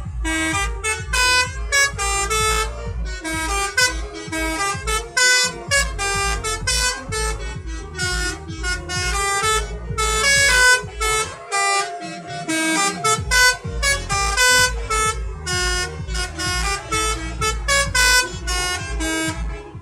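A bus's telolet multi-tone air horn playing a fast melody of short notes, over a steady low rumble.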